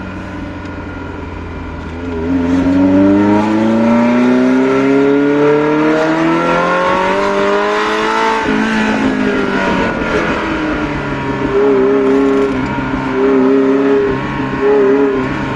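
Ferrari Mondial 3.2's V8 through a custom exhaust, heard from inside the cabin: steady at first, then from about two seconds in it pulls hard under throttle, its pitch climbing for several seconds. About eight seconds in the revs drop sharply at an upshift, and the engine then runs at steadier revs with small rises and falls.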